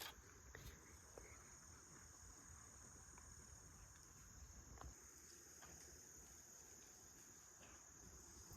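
Near silence with insects trilling faintly in one steady high note, and a few faint ticks.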